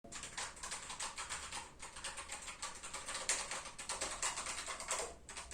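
Fast typing on a Keychron K1 mechanical keyboard with brown switches: a quick, uneven patter of key clicks, with short pauses a little under two seconds in and near the end.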